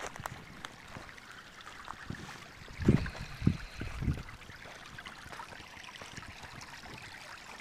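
Shallow creek water running and rippling steadily, with three dull low thumps in quick succession about midway.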